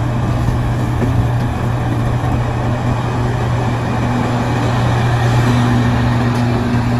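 Liebherr R 976 crawler excavator's diesel engine running steadily under load while digging, a constant low drone with a fainter higher whine joining in during the second half.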